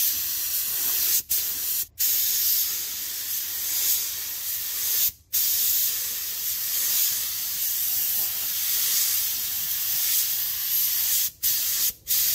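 Compressed-air gravity-feed paint gun hissing steadily as it sprays clear coat. The trigger is let off briefly a few times: about a second in, at about two seconds, around five seconds, and twice near the end.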